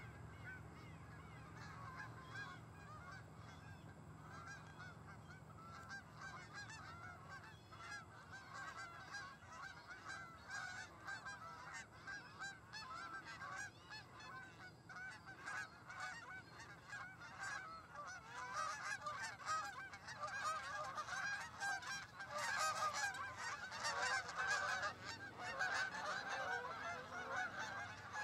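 A large flock of Canada geese honking in flight, many overlapping calls, growing louder in the second half.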